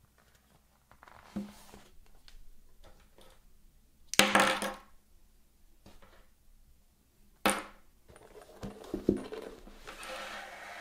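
Handling sounds of Sony WH-1000XM4 over-ear headphones and their cables being moved and set down on a wooden tabletop: a few knocks and a sharp click, with two louder rustling scrapes, one about four seconds in and one near the end as the carrying case is put down.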